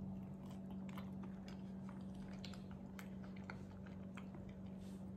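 Faint chewing with small mouth clicks as a man eats a spoonful of cookies and cream cream of rice, over a steady low hum.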